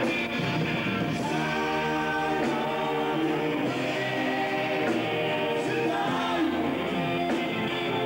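A live band playing a song with singing over it, with drums and electric guitar in the band.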